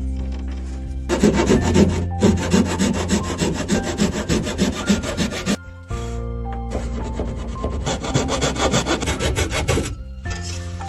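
Hand saw cutting through wood in quick, even back-and-forth strokes, in two runs with a short pause about halfway through.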